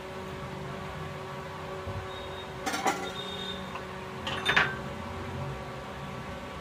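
Kitchen utensils and a plastic container being handled on a stone counter: two short clatters, about three and four and a half seconds in, over a steady low hum.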